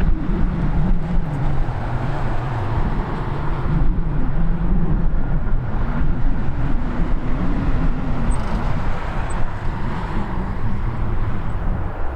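Steady, loud, low engine rumble with a wavering hum.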